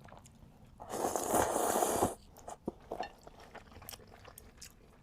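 Fresh rice noodles being eaten: a loud slurp about a second in that lasts about a second, then quiet chewing with small wet clicks.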